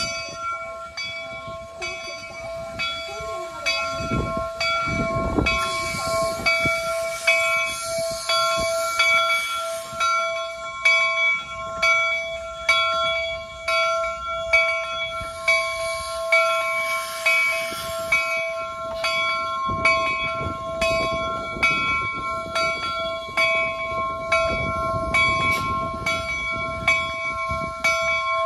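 Jupiter replica steam locomotive's bell ringing in steady, evenly spaced strokes as the engine rolls past. Bursts of steam hiss come about six seconds in and again around sixteen seconds, and a low rumble from the moving engine rises near the start and again in the second half.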